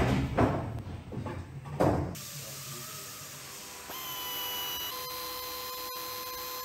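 An aluminium ladder being handled, knocking and clattering three times in the first two seconds. From about four seconds in, a handheld rug-carving clipper runs with a steady whine as it trims the pile along a tufted rug's border.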